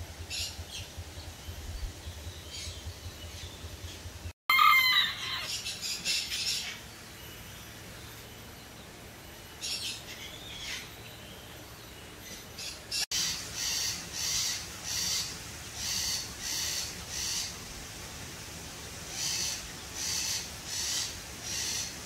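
Sun conure calls: one loud call about four and a half seconds in, then, after some faint chirps, a long run of short high calls repeating about one and a half times a second with a short pause partway through.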